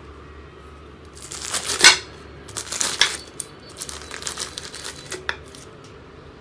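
Slime being squeezed and poked by hand, making crackling, popping clicks in several quick runs, the loudest a little under two seconds in.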